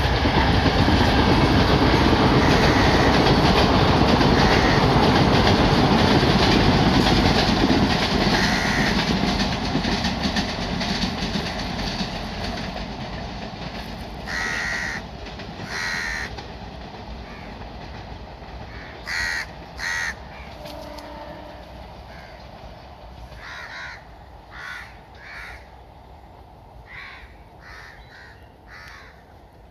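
A passing train's rumble on the track, loud at first and fading steadily as it moves away. In the second half crows caw repeatedly, in short separate calls.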